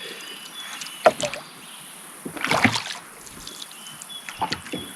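Oars rowing a small wooden dinghy: three strokes, each a knock of the oar in its rowlock and a splash as the blades dip into the water, over faint high bird calls.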